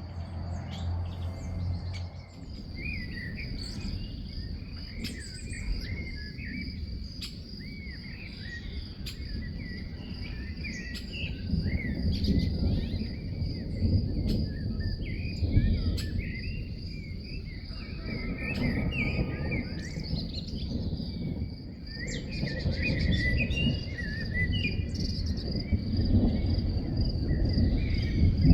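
Garden birds chirping and calling in short, wavering phrases over a steady high-pitched insect-like buzz. Underneath is a low rumble that grows louder in the second half, with scattered sharp ticks.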